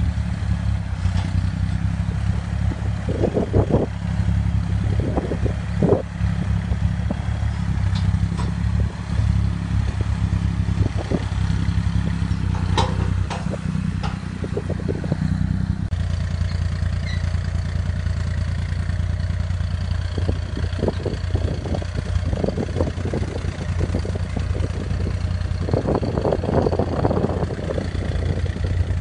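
A 60-horsepower tractor's diesel engine running steadily while it drags a rear grader blade through loose, dry soil, with scattered knocks and clatter from the blade and the soil clods. The engine tone changes abruptly about halfway through.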